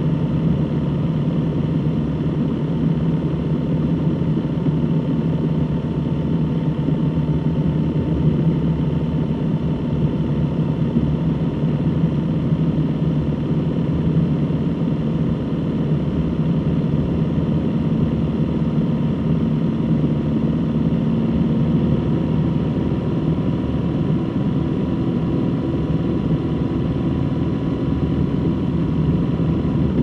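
Motorcycle engine running steadily at a constant cruising speed, mixed with wind and road noise, inside a road tunnel.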